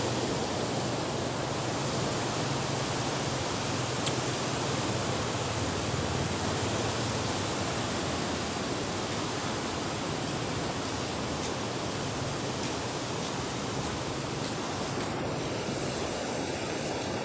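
Water rushing out through a dam's opened gates: a steady, unbroken churning rush, like waves. A small click about four seconds in.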